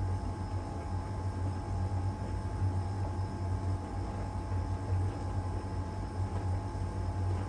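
LG heat pump tumble dryer running in its Iron Dry drying phase: a steady low hum from the turning drum and machinery, with a faint steady whine above it.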